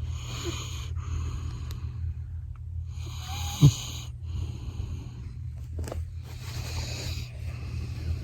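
Labrador retriever snoring in its sleep: three breathy snores about three seconds apart, with one short, louder burst about three and a half seconds in.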